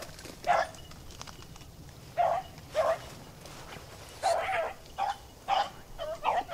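Beagles baying as they run a rabbit's track: short, separate bays come at irregular intervals, more closely together in the second half.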